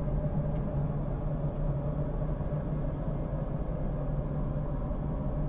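A steady low rumbling drone with a held hum in it, unchanging throughout: dark ambient horror sound design.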